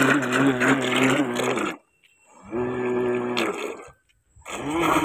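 A 1000 KV brushless (BLDC) motor of a homemade RC boat spinning its 3D-printed propeller in the water in three throttle bursts, each a steady hum with churning water, the pitch rising briefly as a burst starts. It cuts out about a second and a half in and again near four seconds, with short pauses between runs.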